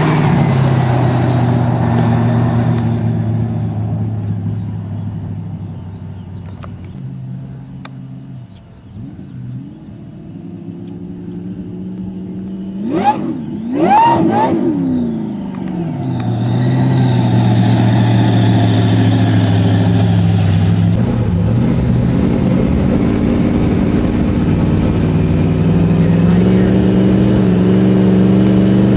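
V8 engine idling with a steady low rumble. About halfway through it is blipped twice in quick succession, the revs shooting up and dropping straight back, and then it settles to idle again.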